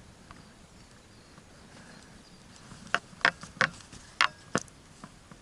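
Quiet outdoor background, then about five sharp clicks or snaps in the second half, spread over about a second and a half.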